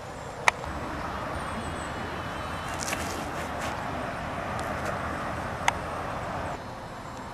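Outdoor field ambience on a handheld camcorder microphone: a steady rushing noise that stops abruptly near the end, with two sharp clicks, one about half a second in and one near the end.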